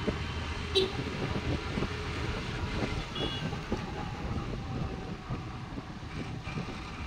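Scooter riding through traffic: the engine and road and wind noise make a steady rumble, with a short knock about a second in and a brief high beep around three seconds.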